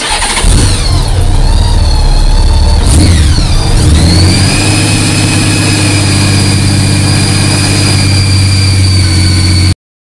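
A vehicle engine starting and revving, with gliding pitch, then settling into a steady idle with a thin high whine over it; it cuts off suddenly near the end.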